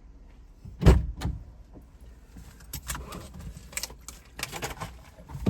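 Two sharp knocks about a second in, the loudest sounds, followed by scattered light clicks and rustling.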